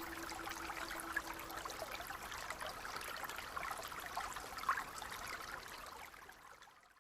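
Spring brook babbling, a steady trickling flow with small splashes, fading out to silence near the end.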